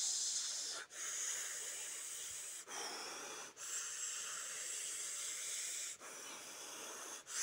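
A man imitating a snake's hiss with his mouth: a run of long breathy hisses broken by short pauses.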